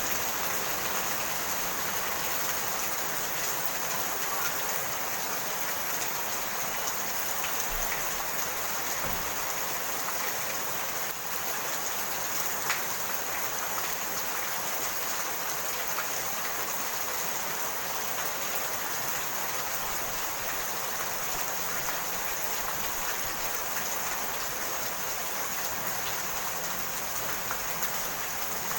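Steady rain falling: an even hiss with many small drops ticking close by, and one sharper drop striking about twelve seconds in.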